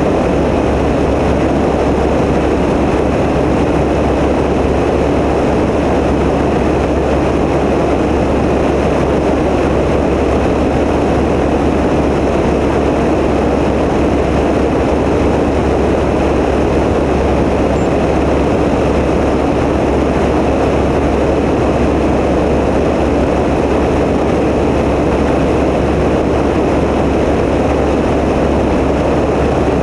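Tecnam P92 light aircraft's piston engine and propeller droning steadily in flight, the sound unchanging in pitch and loudness.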